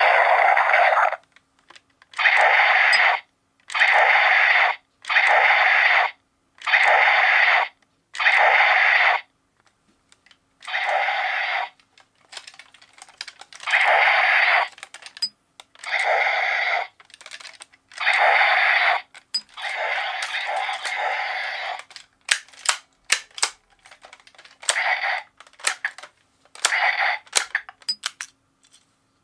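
Electronic sound effects from a Kyoryuger Brave toy weapon's small built-in speaker, played as a string of separate bursts about a second long. Sharp plastic clicks from its trigger and parts come thick near the end.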